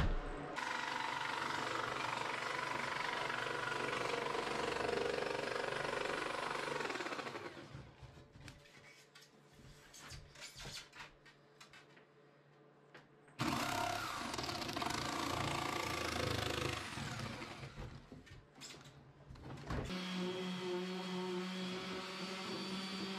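Jigsaw cutting a sheet of OSB in two runs of several seconds each, with a quieter pause between them. Near the end a random orbital sander starts and runs steadily.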